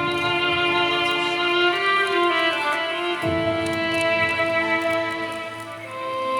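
Music: a violin playing long held notes over an accompaniment, with a change of chord about three seconds in.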